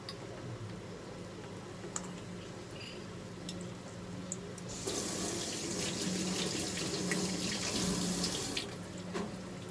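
Battered chikuwa frying in hot oil in a frying pan: a loud, even sizzling hiss starts about five seconds in as a piece goes into the oil and drops back near the end. A steady low hum runs underneath, with a few light clicks before the sizzle.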